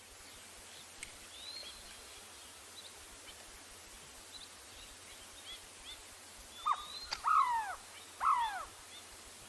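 Birds calling: faint, short high chirps throughout, then three louder calls in quick succession near the end, each arching up and falling in pitch, over a steady background hiss.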